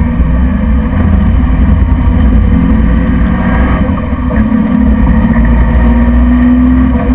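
MGB GT's engine running hard, heard from inside the cabin at speed. Its note dips briefly a little past halfway, then climbs steadily as the car accelerates.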